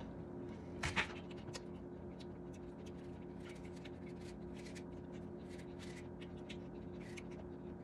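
Kitchen knife paring the skin off a Honeycrisp apple held in the hand: a run of faint short scraping cuts, with two louder knocks about a second in, over a steady low hum.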